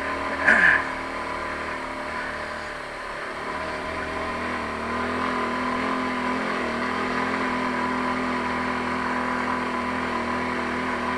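Taotao 150cc ATV's single-cylinder four-stroke engine running steadily as it is ridden along a trail, getting a little louder about five seconds in. A short, sharp sound stands out less than a second in.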